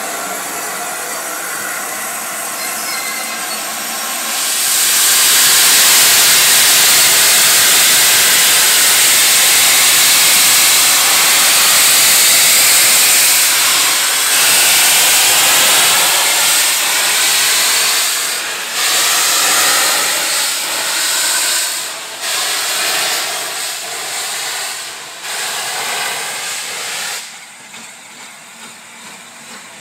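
LNER A4 Pacific steam locomotive 60007 Sir Nigel Gresley venting steam: a loud, steady hiss that swells about four seconds in, then eases and surges several times before dropping away near the end.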